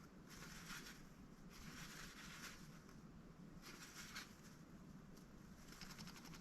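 Mallard duck preening: four faint bursts of feather rustling as it works its bill through its plumage, the last with rapid nibbling clicks.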